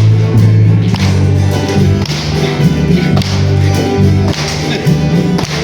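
Music with a steady beat and held low notes that change every half second or so, played through a sound system.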